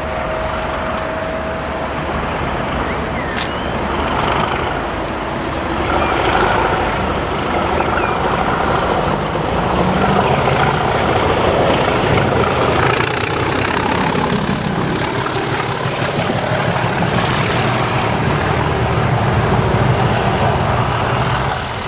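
Class 37 diesel locomotive 37425, its English Electric V12 engine working hard with loud thrash as it runs past light engine, with no train behind it. The engine sound builds from about six seconds in, and a high whistle rises in pitch through the second half.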